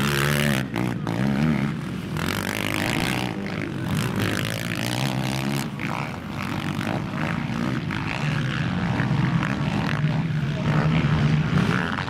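Racing quad engines revving hard as the quads accelerate over a dirt jump, the pitch rising and falling with the throttle. They ease off about six seconds in, and the next quad's engine builds up strongly near the end.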